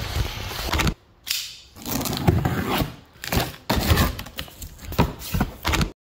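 Cardboard shipping box being handled and opened: scuffs, rustles and light knocks, in short pieces that cut off abruptly.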